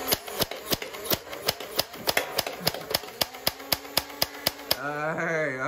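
Battery-powered automatic toy foam-dart blaster firing soft suction-cup darts in a rapid series of sharp mechanical clicks, about four a second, for roughly four and a half seconds. It is running on a half-charged battery. A faint steady motor hum sits under the later shots.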